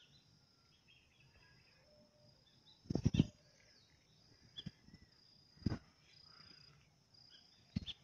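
Outdoor woodland ambience: an insect's steady high shrill with scattered bird chirps. A few dull thumps, the loudest cluster about three seconds in and another near six seconds.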